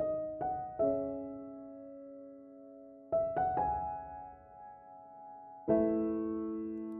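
Slow, gentle piano music: a few soft chords struck apart from one another, each ringing on and fading away before the next.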